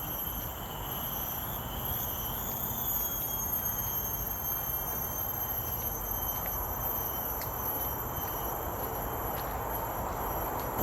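Outdoor ambience of steady, high-pitched insect buzzing over a constant low hiss.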